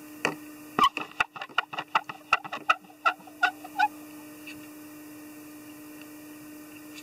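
A quick, irregular run of about twenty small clicks and taps from hands working at a fly-tying vise; they stop about four seconds in. A steady low electrical hum runs under them.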